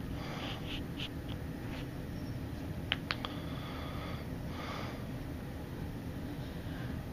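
A man snoring and breathing heavily in his sleep, with one drawn-out breath a little past the middle. A few faint clicks come about three seconds in.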